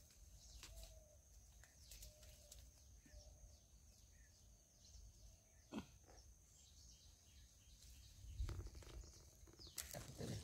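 Quiet outdoor ambience with faint bird chirps: a quick series of short falling high notes and a few brief calls. A few soft knocks, the clearest about six seconds in and more near the end.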